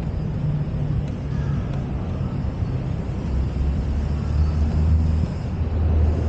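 Low engine rumble of a motor vehicle, growing stronger about halfway through.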